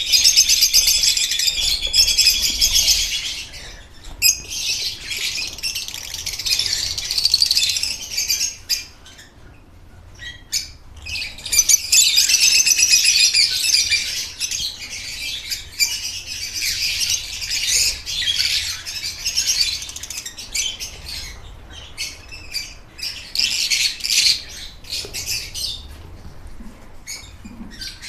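Many lovebirds chattering and squawking at once, a dense high-pitched din with a brief lull about nine to eleven seconds in.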